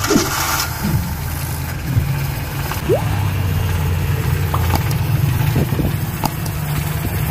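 Honda Civic's carbureted four-cylinder engine idling steadily, just after its flooding carburetor was fitted with a new o-ring.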